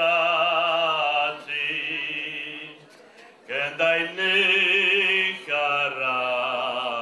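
An older man singing a slow ballad solo, holding long notes with a wide vibrato. About three seconds in he breaks for a breath, then starts the next phrase.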